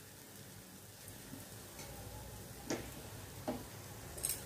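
A few faint ticks and crackles over a low hiss from a hot cast-iron tawa of dry-fried masala mushrooms, just off the flame. Three sharper clicks come in the last second and a half.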